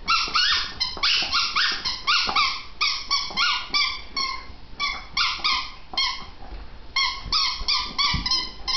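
Dog whining in a rapid run of short, high-pitched whines and yips, about three a second, with a couple of brief pauses.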